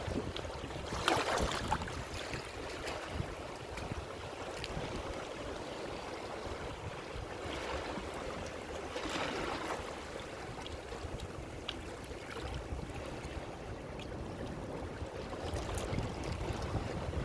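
Ocean waves washing onto a shore in a continuous hiss of surf, with a few swells breaking louder, about a second in, around eight to nine seconds, and near the end. A low rumble of wind runs underneath.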